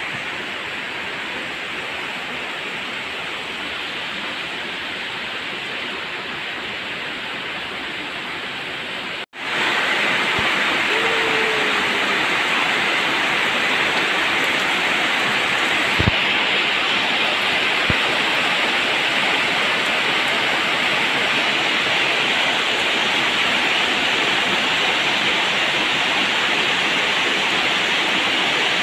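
Heavy monsoon rain pouring steadily, a dense even hiss of downpour on roofs and palms. It cuts out for an instant about a third of the way through and comes back louder, with a couple of faint knocks later on.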